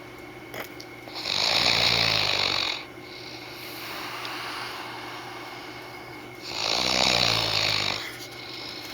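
Man snoring in his sleep: two loud snores about five seconds apart, each about a second and a half long, with quieter breathing between. The uploader puts the snoring down to his sinuses.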